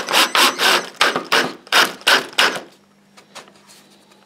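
Cordless drill driving a wood screw into MDF in a quick run of short bursts, about eight, that stop a little over halfway through; a few faint clicks follow.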